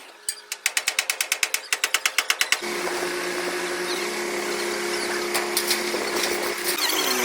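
A pneumatic tool hammering rapidly, about ten blows a second, stops after about two and a half seconds, and a power tool then runs steadily with a constant hum.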